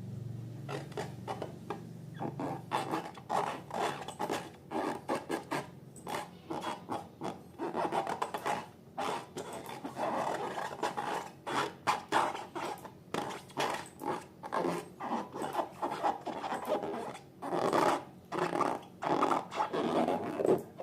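Slime being mixed and squished: a run of quick, irregular sticky rubbing noises that grow louder after the first couple of seconds.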